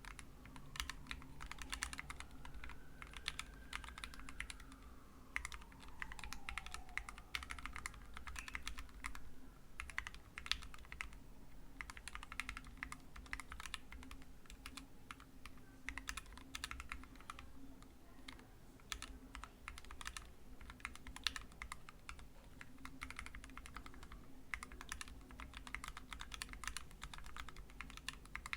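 Ergodash split mechanical keyboard with lubed Gateron KS8 switches and blank ePBT keycaps being typed on, in slow, uneven runs of keystrokes with short pauses. A faint tone in the background slowly rises and then falls in pitch during the first several seconds.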